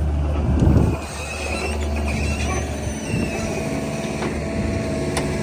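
Farm loader's engine running steadily while it pushes straw bales into a walking-floor trailer, with a louder surge of noise about a second in and faint high squeaks.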